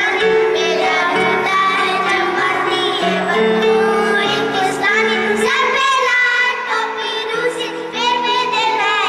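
Children singing a song together over backing music that holds long steady chords.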